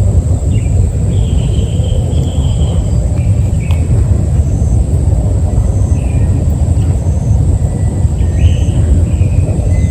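Heavy rain, a steady loud low rumbling wash with no letup, with faint short chirping calls from small animals over it.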